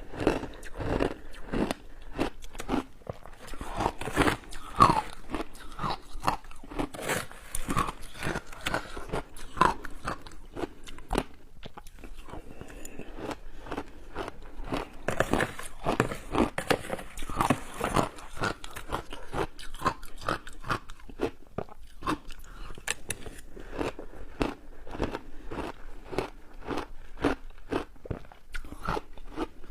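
Close-miked crunching of shaved ice coated in matcha and milk powder, bitten and chewed in big mouthfuls, a quick run of sharp crunches throughout.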